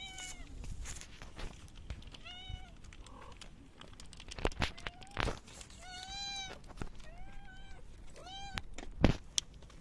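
A hungry stray tabby cat meowing, about five short meows that rise and fall in pitch, spread out with pauses between them. Scattered clicks and a sharp knock near the end, the loudest sound.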